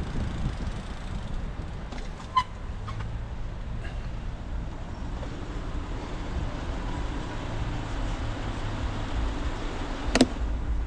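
City street traffic with a steady low rumble of car engines idling at a stop. A sharp click comes about two seconds in, and a louder short knock near the end.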